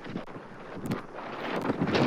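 Strong tropical-storm wind buffeting the nest cam's microphone in gusts, growing louder near the end.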